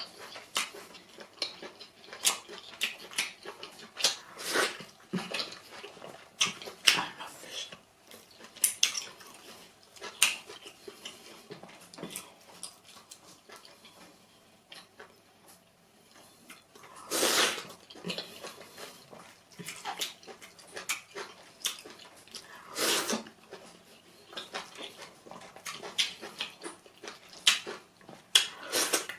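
Close-miked eating sounds from a mouthful of pounded yam and vegetable soup: scattered wet smacks and mouth clicks, with two louder half-second sounds in the second half.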